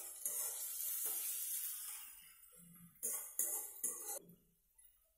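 Chopped onions frying in hot oil in a kadai, sizzling: it starts suddenly and fades over about two seconds, then three short clinking bursts about three seconds in as the pan is worked.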